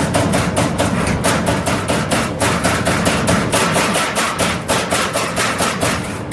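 CNC turret punch press hammering through sheet metal in a fast, even run of strokes, about six a second.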